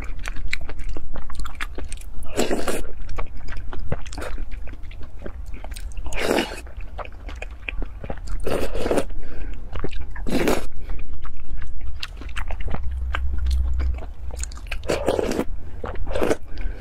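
Close-miked eating sounds: a person slurping a milky dessert off a wooden spoon, about six loud slurps, with wet chewing clicks in between and a steady low hum underneath.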